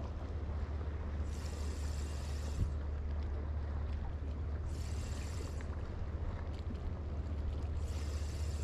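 Wind buffeting the microphone as a steady low rumble, with sea water washing and hissing in three surges about every three seconds.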